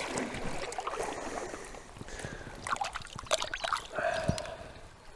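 Shallow stream water splashing and sloshing as a freshly landed grayling is held and moved in the water by hand, in irregular bursts with small clicks and drips. A brief tone sounds about four seconds in.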